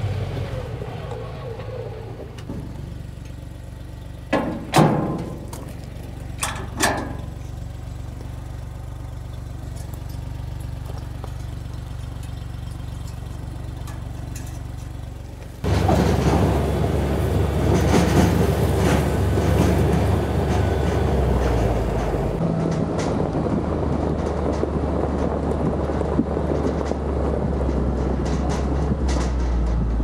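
Engine of a Tracker side-by-side UTV running steadily as it drives towing a dump trailer, with a few short sharp knocks a few seconds in. About halfway through it turns suddenly louder, with tyre and gravel noise over the engine.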